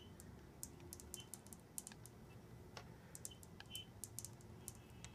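Near silence: a faint low hum with scattered light clicks.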